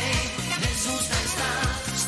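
Upbeat pop song with a steady beat and a voice singing the melody.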